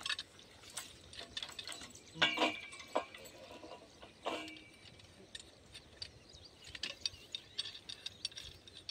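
Metal clicks and clanks from a hand-lever pipe lifter on a tripod and its clamp on the borewell pipe, as the pipe string is hauled up to change a burnt-out submersible pump motor. Two louder clanks, about two and four seconds in, ring briefly.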